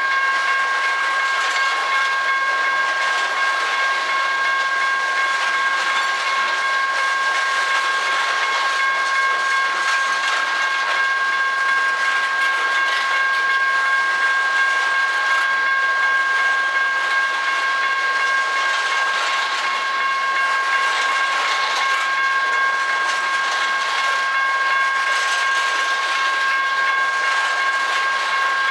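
Steel-wheeled coal hopper cars of a unit coal train rolling past close by: a steady rush of wheel-on-rail noise, with a steady high ringing tone held over it.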